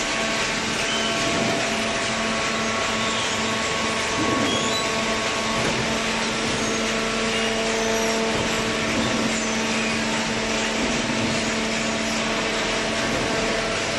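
High-speed cardboard baler running: a steady machine hum with a constant low tone under a broad rushing noise.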